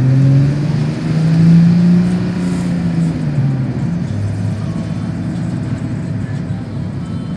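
Bus engine heard from inside the moving bus, with road noise; the engine note rises over the first couple of seconds, drops about three to four seconds in, then runs lower and steady.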